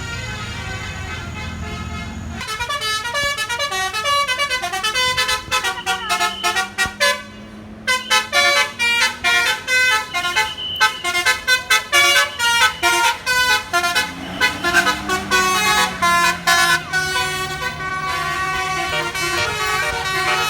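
A bus's multi-tone 'basuri' telolet air horn playing a fast melody of many short, changing horn notes, with the engine running underneath. It starts with a held chord for about two seconds and breaks off briefly about seven seconds in.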